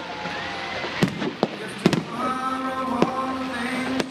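Aerial firework shells bursting: about half a dozen sharp bangs at irregular intervals, the loudest a little under two seconds in, with music playing underneath.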